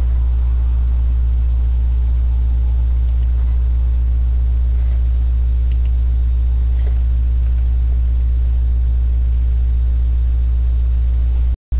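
A steady low hum that holds an even level throughout, cutting out for an instant near the end.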